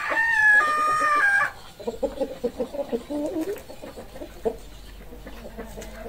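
A rooster crows once, loud and about a second and a half long, then hens cluck in short repeated calls.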